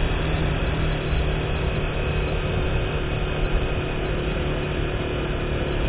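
Steady vehicle ride noise: an engine running at an even speed under a constant rush of road and wind noise.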